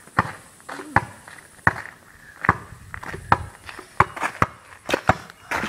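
Basketball bouncing on pavement: a sharp thud about every three-quarters of a second, coming closer together near the end.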